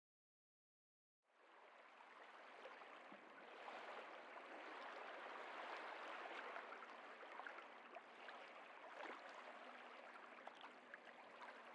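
Faint running-water sound with small crackles, coming in after about a second of silence.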